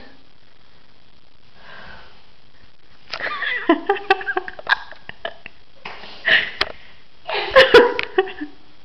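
A person's breathy vocal noises, sniffs, gasps and hiccup-like sounds, in three short bursts, with several sharp knocks among them, the loudest near the end.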